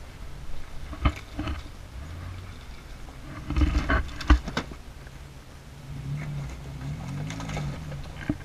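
Lifted Jeep Liberty crawling over loose rock: a low engine rumble with sharp knocks and crunches of tyres on stones, a burst of them a few seconds in, and the engine revving up and down a couple of times near the end.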